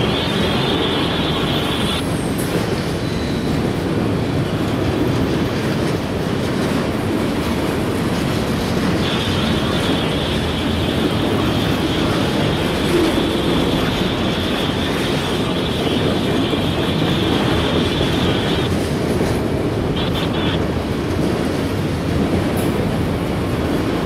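Freight train of autorack cars rolling past: a steady rumble and rattle of steel wheels over rail joints, with a high wheel squeal that comes in near the start and again for several seconds in the middle.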